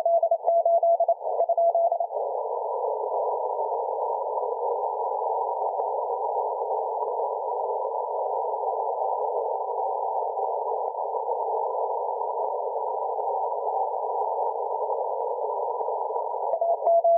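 Morse code (CW) heard through a shortwave receiver with a narrow filter: a single tone keyed rapidly on and off in dots and dashes over static for about the first two seconds. Then only the filtered static hiss, until the keying starts again near the end.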